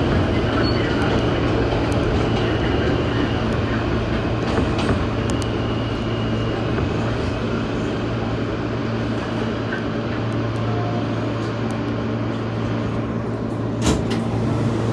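New York City subway train noise: a steady rumble with a constant low hum, and a sharp click near the end.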